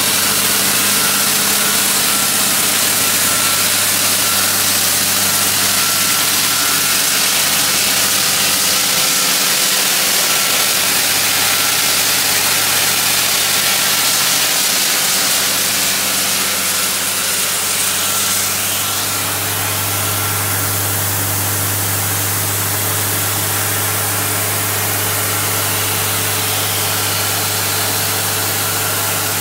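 1994 Ingersoll-Rand T3W water-well drill rig running steadily, a constant low mechanical hum under a loud hiss. About two-thirds of the way through the hiss eases and the low hum grows stronger.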